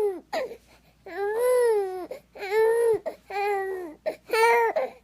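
An infant crying in a run of about five high-pitched wails, each rising and falling in pitch, with short breaths between them.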